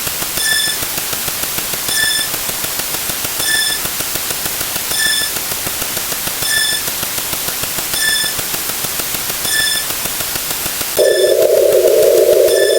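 Electronic sound effects: a steady static hiss with a short, high beep about every second and a half, and about eleven seconds in a loud, coarse hum comes in over them.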